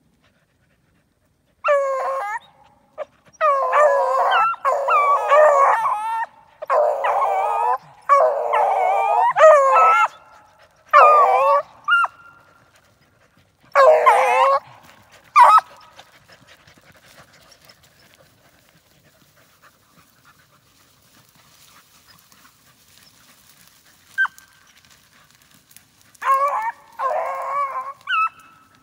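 Beagles baying: a run of drawn-out, wavering calls that breaks off about halfway through, then starts up again near the end after one short yelp.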